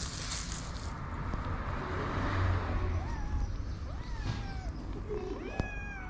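Kitten meowing three times from about three seconds in: short calls that rise and then fall, the last one longer and higher-pitched.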